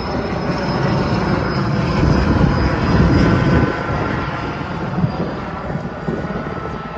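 Firefighting helicopter flying close by: a loud, dense rotor and engine rumble with a thin steady whine above it, easing off a little about four seconds in.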